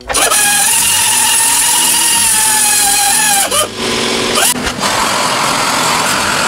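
Small hand-held die grinder with a grinding disc, whining steadily as it grinds the steel end of a hydraulic ram to bevel it for welding. The whine cuts out briefly twice about three and a half to four and a half seconds in, then comes back rougher as the disc bites harder.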